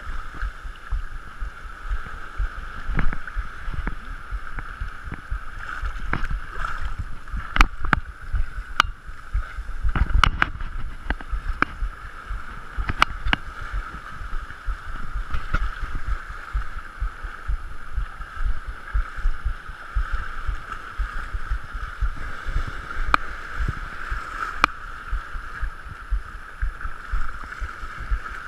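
Shallow seawater sloshing and splashing around a person wading through it, with small waves washing over rocks and now and then a short knock.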